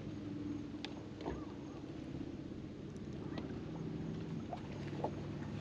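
Electric trolling motor on a bass boat humming steadily, its pitch dropping a little about halfway through, with a few faint clicks over it.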